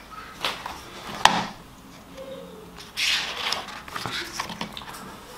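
Glossy pages of a hardback book being turned by hand: paper rustling with a sharp tap a little over a second in and a longer swish of a page about three seconds in.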